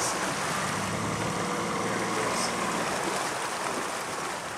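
A boat's motor running steadily at low speed, a low even hum, with noise from wind and water.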